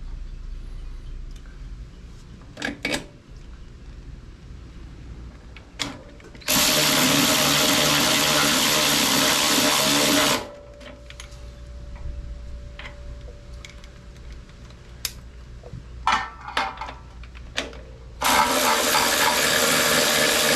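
Cordless power tool driving in the motorcycle's rear-shock mounting bolts, which are coated with blue Loctite. It runs steadily twice, for about four seconds and then about three, with a few clicks and knocks of tool and hardware in between.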